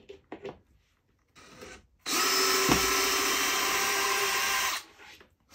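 Cordless drill running at a steady speed for nearly three seconds, starting about two seconds in, as it drills a hole in the end of the cart deck's rail. A few light handling clicks come before it.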